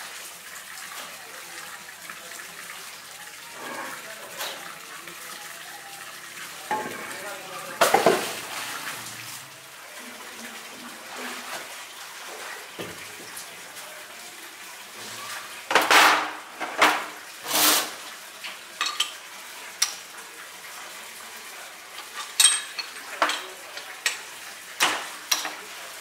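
Water running and splashing into a concrete tank while a steel tennis-ball mould plate is rinsed, then heavy steel mould plates clanking and knocking as they are set down and worked on a wooden bench: one loud clank about eight seconds in, and a run of sharp clanks in the second half.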